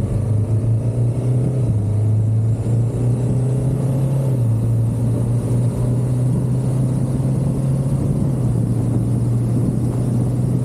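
Honda Africa Twin's parallel-twin engine running steadily while the motorcycle is ridden along the road. The engine note eases down slightly a couple of times.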